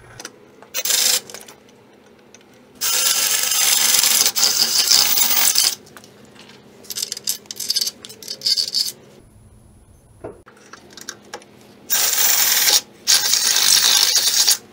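DeWalt cordless drill boring through the steel frame rail of a Jeep, run in bursts of one to three seconds, with the bit grinding and chattering against the metal.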